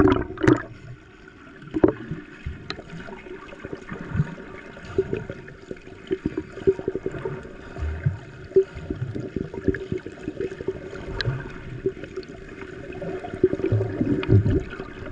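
Sea water heard through an action camera's waterproof housing as it goes under: a splash at the start, then muffled gurgling and sloshing with many small clicks and pops over a steady low hum.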